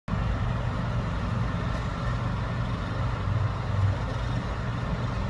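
A steady low engine hum, like a vehicle idling.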